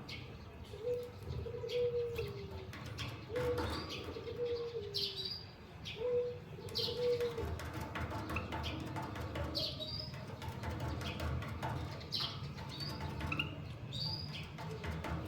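Caged small finches, a canary and a white-headed munia, giving short high chirps amid wing flutters and sharp clicks of movement in the cage. A dove coos repeatedly in paired low coos, mostly in the first half.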